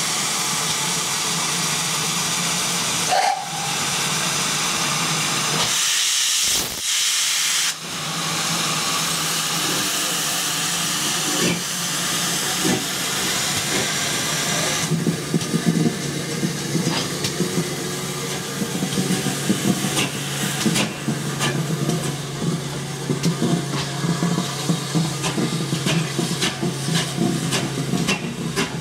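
GWR Modified Hall 4-6-0 steam locomotive No. 7903 Foremarke Hall letting off a steady hiss of steam. About halfway through it moves off slowly, its cylinder drain cocks still hissing, with irregular clicks and clanks from its wheels over rail joints and points.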